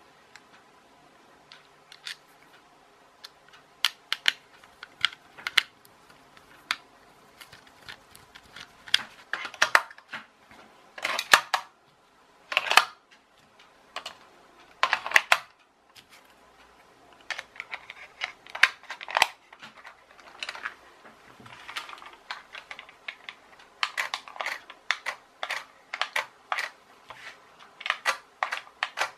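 Quick, irregular plastic clicks and clatter from hands handling a plastic RC toy car: a screwdriver working the chassis screws and AA batteries pushed into the spring contacts of the battery compartment.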